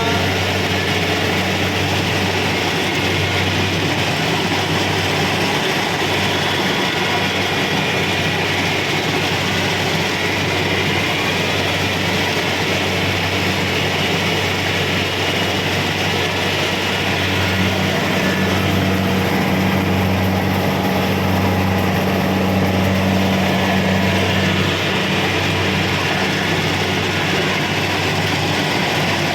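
Kubota DC-70 Pro combine harvester running steadily as it works, a loud even machine drone that swells for several seconds past the middle.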